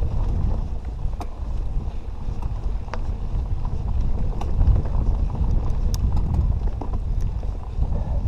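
Canyon Nerve 27.5 trail bike ridden over a rough, rocky trail, picked up by a GoPro: a steady low rumble of wind on the microphone and tyres on the ground, with scattered sharp clicks and knocks from the bike and stones.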